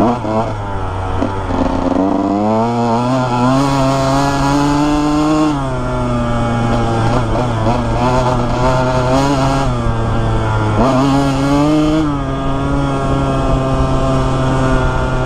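2001 Honda CR125R's two-stroke single-cylinder engine under way, revving up and easing off with the throttle, its pitch climbing and dropping several times.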